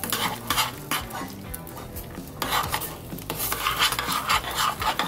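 Metal spoon stirring and scraping thick cornmeal dough in a stainless steel pot, in repeated uneven strokes, as the cornmeal is worked into the hot salted water until it thickens.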